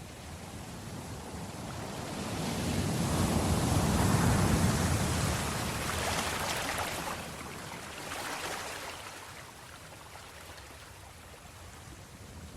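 Sea waves washing onto the shore: one wave builds about two seconds in, is loudest around four to five seconds, then draws back, with a smaller surge a little later.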